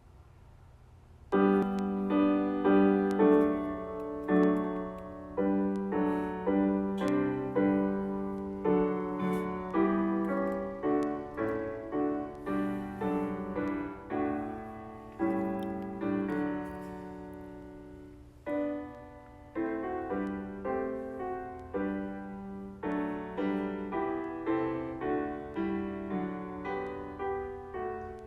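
Soft instrumental piano music, with gentle struck notes and chords each fading away, coming in about a second and a half in after a moment of faint low background noise.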